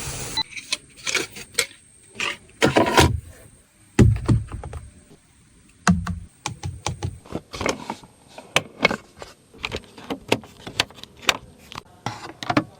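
Audi A5 fittings and controls being worked: a quick run of sharp clicks and knocks, with two heavier low thuds about four and six seconds in.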